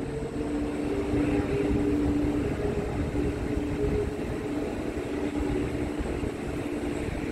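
Jet aircraft engines running, a steady drone with a held low hum, with wind rumbling on the microphone.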